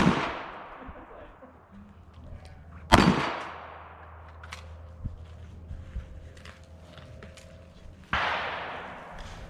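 Three gunshots spaced a few seconds apart, the first two loud and sharp and the last one quieter, each followed by a long echoing tail.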